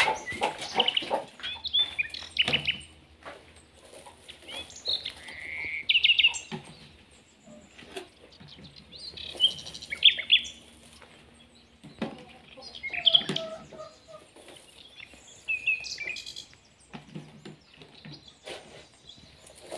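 Domestic hens in a hen house calling and clucking, with scattered high chirps, over short clicks and rustles of eggs being lifted out of straw and set into a plastic colander.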